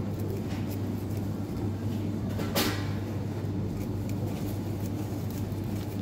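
Steady low mechanical hum with faint handling and rustling noises while a gilt-head sea bream is cut open with a blade; one short sharp sound stands out about two and a half seconds in.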